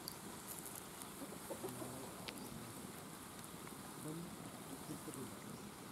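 Chickens clucking faintly in short, scattered calls over steady outdoor background hiss, with a single sharp click a little over two seconds in.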